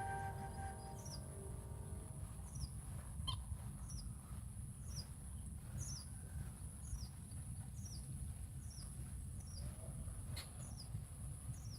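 A bird repeating a short, high, falling chirp about once a second, over a steady low rumble. Background music fades out in the first second or two.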